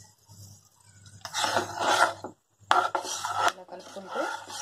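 A slotted spatula stirring and scraping in a nonstick pan as a cornflour-and-water slurry is mixed into sautéed capsicum, in two bouts of scraping each about a second long.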